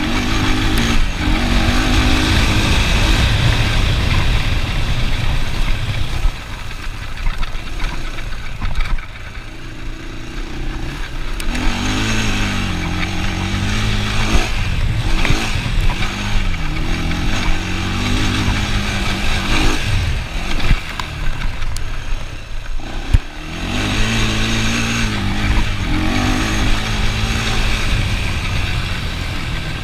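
ATV engine running while being ridden, its pitch rising and falling again and again as the throttle is opened and eased off.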